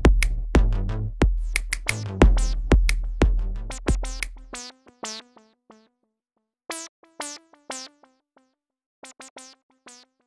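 Electronic outro music: a drum-machine beat with deep bass and synthesizer notes. About halfway through, the beat and bass drop out, leaving sparse, short synth notes with gaps between them as it winds down.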